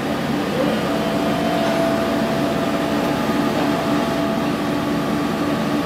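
Scharmann HeavyCut 3.3 floor-type horizontal boring mill running: a steady mechanical hum, with a higher whine that comes in about a second in and stops near four and a half seconds.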